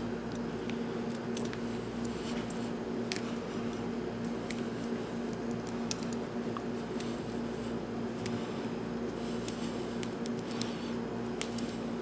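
Fingers straightening the untwisted copper wire pairs of a Cat5e cable: faint scattered ticks and rustles over a steady low hum.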